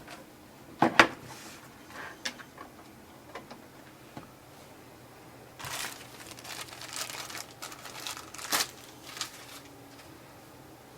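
Handling noises while getting the printer's power cord ready to plug in: a sharp knock about a second in and a few small clicks, then plastic packaging crinkling for a few seconds.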